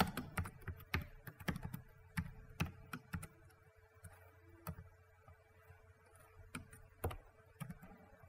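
Typing on a computer keyboard: quick runs of keystrokes for the first few seconds, then only a few scattered presses.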